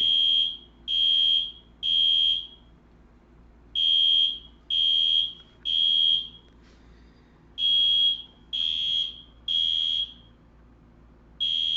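Fire alarm sounder during an alarm test, beeping a single high tone in groups of three with a longer pause between groups, repeating about every four seconds: the temporal-three evacuation pattern. Really loud.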